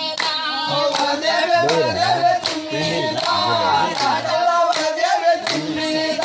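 A group of people singing together, clapping hands in a steady beat of about two claps a second.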